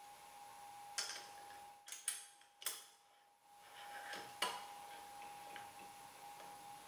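Metal-on-metal clicks and taps from a T-handle hex key turning an adjustment screw into a steel collet chuck: about five sharp clicks, the first about a second in and the last near four and a half seconds. A faint steady tone runs underneath.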